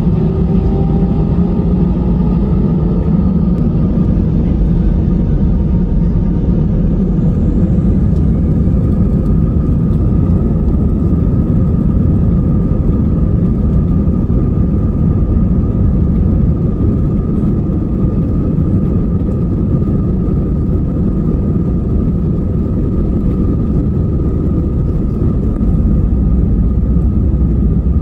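Airbus A320's jet engines heard from inside the cabin while the plane taxis: a steady rumble with a constant whine, and a tone rising in pitch over the first few seconds.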